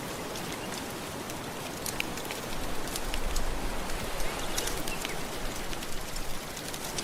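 Soft ocean waves washing in a steady hiss, with one wave swelling a little louder a few seconds in, layered with the sharp pops and crackles of a wood fire scattered throughout.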